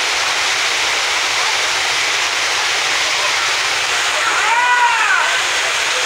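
Waterfall pouring over rocks into a pool: a loud, steady rush of water. About four and a half seconds in, a brief high-pitched call rises and falls in pitch over it.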